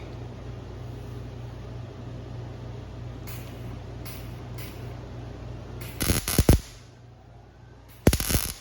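TIG welding arc struck twice in short bursts on thin sheet metal, laying tacks: two loud hissing crackles about six and eight seconds in, the first one stuttering in several pulses. A steady low hum runs underneath until the first arc.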